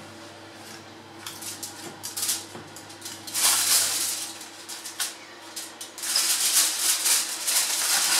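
Aluminium foil crinkling and rustling as it is peeled back off a baking tray, in loud bursts about three seconds in and again from about six seconds on.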